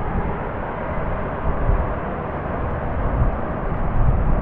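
Wind buffeting the microphone: a steady rush with uneven low rumbling.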